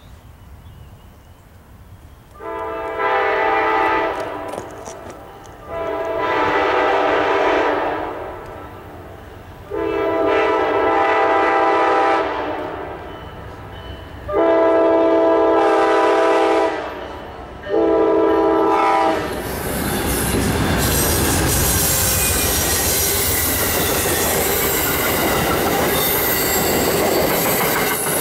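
Amtrak GE P42DC diesel locomotive sounding its multi-tone air horn in five blasts, four long and a shorter last one, as it approaches. Then the train rushes past, engine, wheels and passenger cars making a steady loud roar with wheel clatter over the rails.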